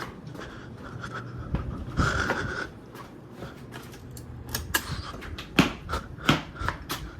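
Ceiling fans running with a low steady hum, under a string of irregular sharp clicks and knocks, thickest in the second half.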